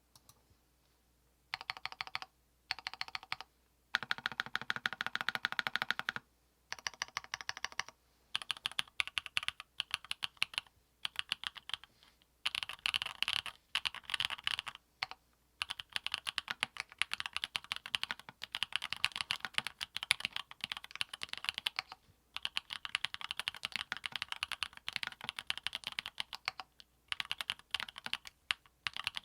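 Custom 60% mechanical keyboard with an aluminium plate, lubed Everglide Dark Jade Black linear switches and PBT keycaps, being typed on quickly in runs of a few seconds with short pauses between them.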